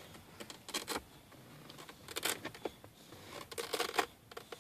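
Faint rustling and a few soft clicks as a small child shifts on a cloth car seat and handles a plastic centre-console lid.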